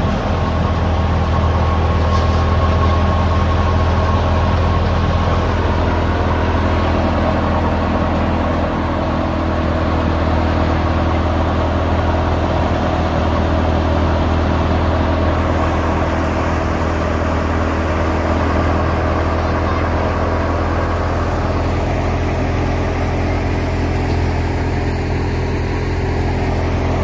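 Tractor-driven wheat thresher running steadily under load, together with the Fiat 640 tractor's diesel engine driving it, making a constant low hum and mechanical drone as grain and chaff pour out.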